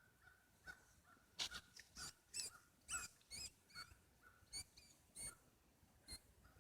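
Mouse squeaking in distress as a cat plays with it: a quick series of about a dozen short, high, wavering squeaks from about a second and a half to five seconds in, and one more near the end.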